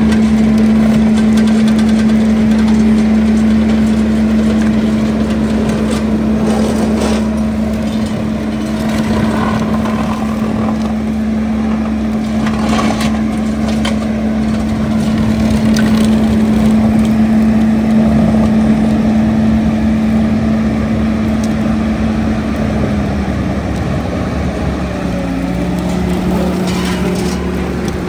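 Skid steer engine running steadily under load while its Coneteks 2.13M hydraulic grinding attachment chews through soil, roots and stumps, with crunching and cracking on top. The engine's steady hum drops slightly in pitch about three-quarters of the way through.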